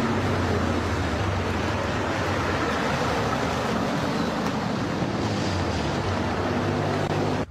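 Steady rushing of wind on the microphone over the low hum of vehicles, ambulances among them, driving past on a dirt road. It cuts off suddenly at the end.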